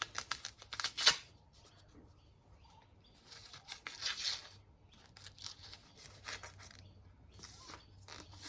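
Packaging being torn open and rustled off a new motorcycle fork tube, in crackling bursts: one in the first second, another about three to four seconds in, and a short one near the end.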